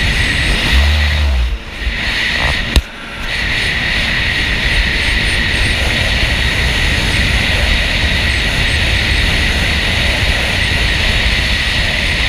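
Jet ski engine running steadily, with wind and water noise and a constant high whine; the sound dips briefly twice, with a sharp click about three seconds in.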